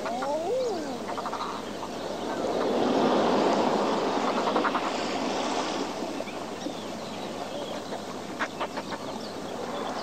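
Seabirds calling over surf on a rocky shore: a couple of sliding calls at the start and short rattling calls here and there, while a wave swells and ebbs in the middle.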